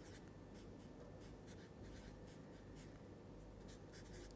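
Faint scratching of a pen writing on paper, a quick run of short, irregular strokes as words are handwritten.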